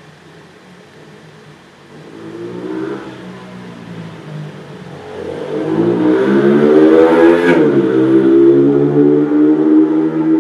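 A motor running, faint at first, then much louder from about five seconds in. Its pitch rises and then drops once before holding steady.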